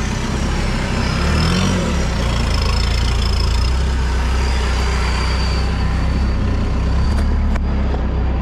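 Off-road 4x4's engine running steadily on the dirt course, heard from in the cab, its pitch rising briefly about a second and a half in. A thin high whine sits above it throughout, and there are two light knocks near the end.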